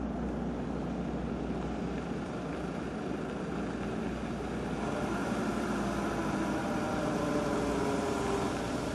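Military Land Rover Defender driving slowly on a gravel track, its engine running steadily with a low hum and the rumble of its tyres on the gravel. The engine note grows clearer and louder about halfway through as the vehicle comes up close.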